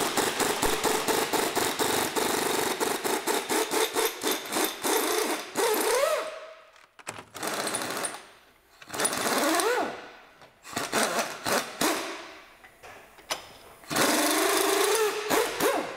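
Pneumatic air ratchet running on a front suspension arm nut: a long, fast, rattling run, then four shorter bursts, each spinning up to a rising whine as the nut turns freely.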